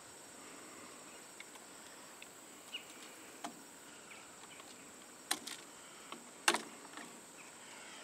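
Light clicks and knocks of an old electrical receptacle and its wires being worked loose and pulled out of a plastic outdoor box, the sharpest about five and six and a half seconds in. Under them a faint, steady, high-pitched insect drone.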